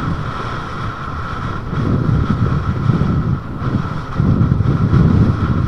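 Wind rushing and buffeting on the microphone as a high-power electric bike with a gearless hub motor rides along, swelling twice, over a steady high whine.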